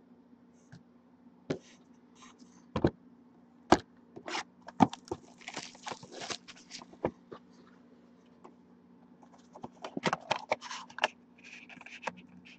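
Plastic shrink-wrap being stripped off a trading-card box: several sharp snaps, then a spell of dense crinkling. Near the end there is rustling and snapping as the cardboard box is opened.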